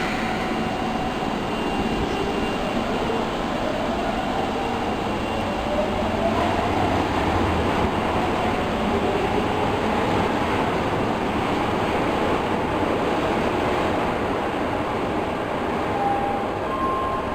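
Osaka Metro Tanimachi Line subway train running, a steady rumble with electric traction motor whine gliding in pitch.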